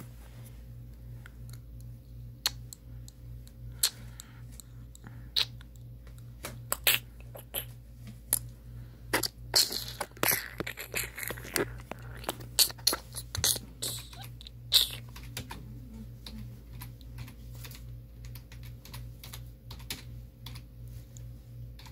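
Computer keyboard being typed on in irregular runs of key clicks, over a steady low hum.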